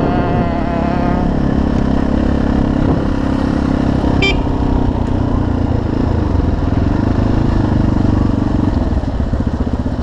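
Viar Cross X 200 single-cylinder four-stroke motorcycle engine running while riding, heard from the rider's helmet camera. There is a brief high-pitched chirp about four seconds in. Near the end the engine note drops to slow, distinct pulses as the bike slows down.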